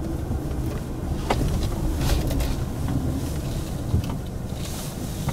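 2016 Chevrolet Colorado Z71 pickup creeping down a rutted dirt slope in four-wheel drive under hill descent control, heard from inside the cab: a steady low rumble with a few knocks, the clearest about a second in and at about four seconds.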